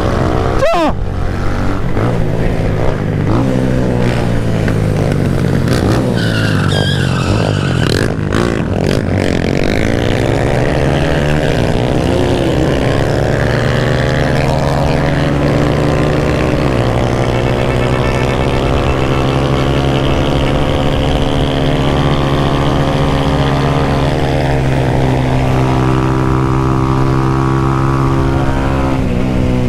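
Motorcycle engine running under load on the move, its pitch climbing as it accelerates. It drops sharply at a gear change a little past halfway, then holds steady at speed.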